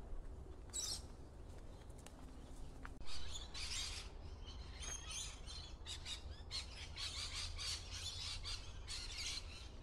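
Wild birds in eucalypt bushland calling together: many short, high, overlapping calls that set in about three seconds in and keep going, over a steady low rumble.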